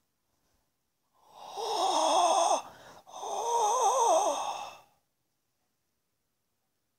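Two breathy sounds with a wavering, wobbling pitch, each about a second and a half long, one straight after the other.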